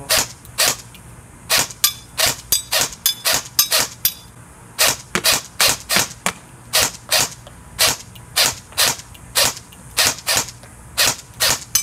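Ares Amoeba AM-013 Honey Badger airsoft electric gun (AEG) firing a long string of single shots, about two to three a second, with short gaps here and there.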